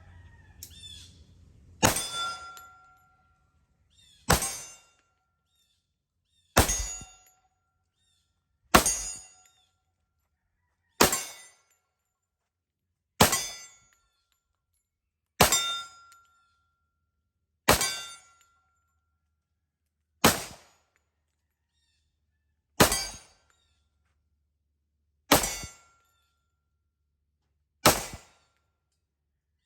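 Twelve slow, evenly paced shots from an FNX-45 Tactical .45 ACP pistol, about one every two and a half seconds. Most are followed by the brief ring of a steel target being hit.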